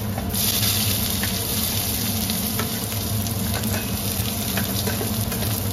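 Chopped onions dropped into hot mustard oil in a steel kadhai, sizzling. The hiss starts suddenly about a third of a second in and then holds steady, with scattered light ticks, over a steady low hum.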